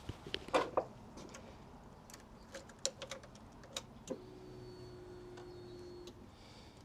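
Honda CBR600RR's electric fuel pump priming: a steady hum with a faint high whine, starting about four seconds in and lasting about two seconds before cutting off. A few light clicks come before it.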